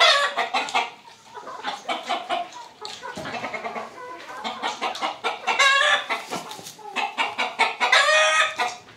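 A flock of cross-bred chickens, Ayam Cemani × Bresse Gauloise, clucking throughout, with two longer drawn-out calls, one about five and a half seconds in and one near the end.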